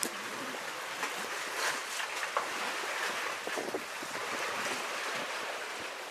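Seawater sloshing and splashing among the concrete tetrapods of a breakwater: a steady wash with small irregular splashes.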